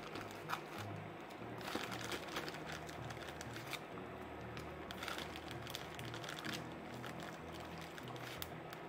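Frozen meatballs dropped by hand into a pan of simmering broth: scattered soft clicks and small splashes, with a low hum underneath.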